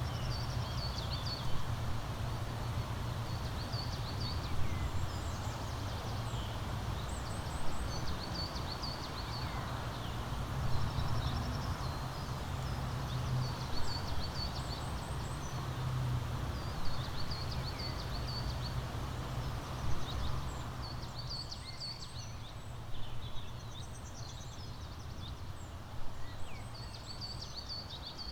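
Songbirds chirping, with a short high song phrase repeated every two to three seconds and other chirps in between, over a low steady rumble that drops away about two-thirds of the way through.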